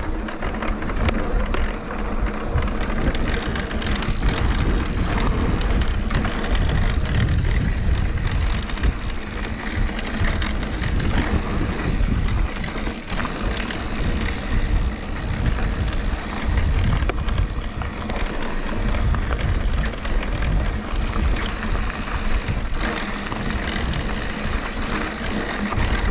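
Mountain bike riding over a rocky trail: tyres crunching on rock and the bike rattling, with steady wind rumble on the camera microphone.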